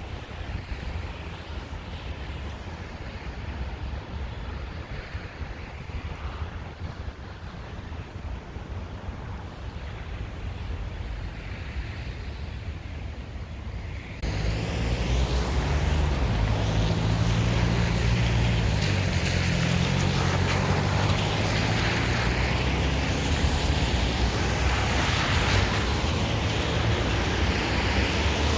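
Wind blowing on the microphone in a snowstorm: a steady low rumble with a broad hiss, which gets suddenly louder about halfway through.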